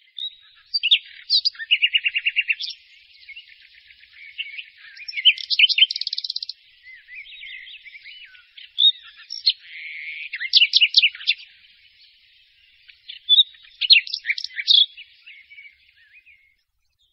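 Songbird singing: bright chirps and rapid trills in several phrases separated by short pauses.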